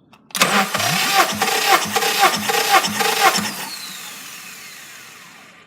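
Honda D17A engine being cranked by its starter motor without firing, as in a compression test: the starter labours in an even pulse about twice a second, then is released and spins down with a falling whine.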